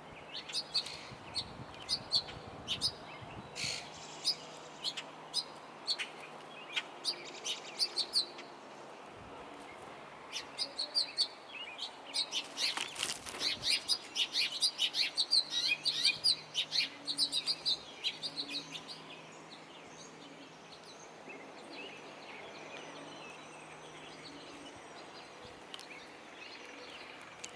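Wild birds chirping: scattered short, sharp chirps at first, then a dense, rapid run of chirps for several seconds in the middle, thinning to faint chirps near the end.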